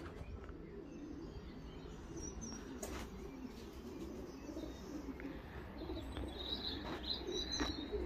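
Pigeons cooing, a soft continuous murmur of overlapping low calls over a low rumble, with a few high chirps near the end.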